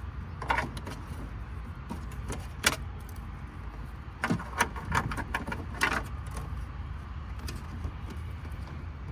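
Scattered plastic clicks and rattles from handling the door mirror's wiring connector and harness as it is plugged in, over a steady low hum.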